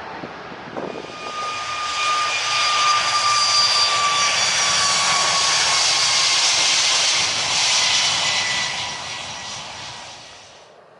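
Four-engined Airbus A380 passing close on its landing approach: the jet engine noise swells, holds and fades, with fan whines sliding slowly down in pitch as it goes by. The sound cuts off abruptly near the end.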